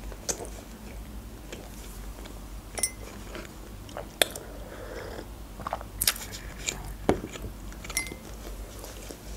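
Close-miked chewing and mouth sounds with scattered small clicks and smacks; about four seconds in, a sip from a mug.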